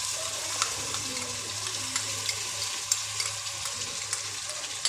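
Ginger-garlic paste sizzling in hot oil with fried onions, a steady sizzle with scattered sharp crackles and pops.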